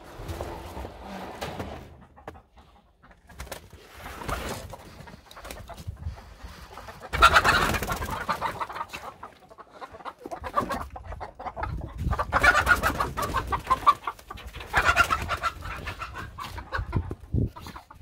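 Chickens clucking in the coop, coming in several loud bursts with quieter stretches between; the loudest bursts fall about seven, twelve and fifteen seconds in.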